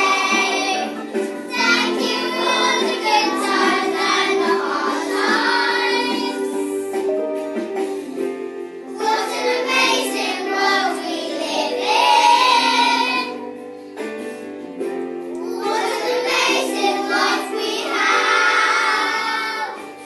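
Children singing a song together over an instrumental accompaniment, in three phrases with short instrumental gaps between them.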